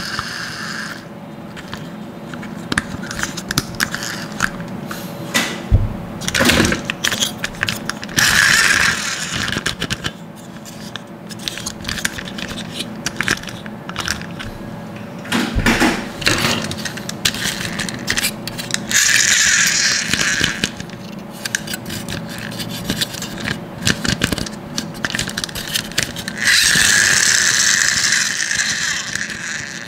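Plastic toy monster trucks being handled: clicks, rattles and scraping of hard plastic parts, with three bursts of a higher rasping whir lasting one to three seconds each, the longest near the end.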